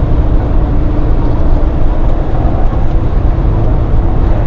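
Steady in-cabin drone of a Ford Crown Victoria Police Interceptor's 4.6-litre V8 cruising at highway speed, blended with road noise, with a faint steady hum throughout.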